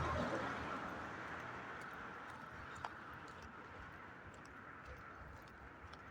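Footsteps of a person walking over steady outdoor background noise that slowly fades, with one sharp click about three seconds in.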